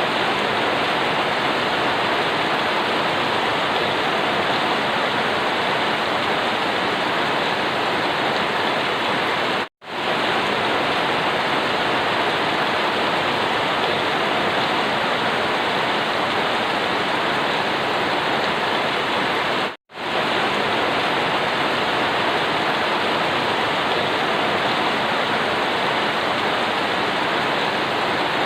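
Steady rain falling, an even hiss without separate drops standing out. It cuts out to silence for a split second twice, about ten seconds apart, then resumes at once.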